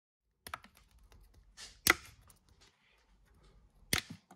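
Small parts being handled and set down, making sharp clicks and knocks, starting about half a second in. There are three main knocks, and the loudest comes about two seconds in, just after a short hiss.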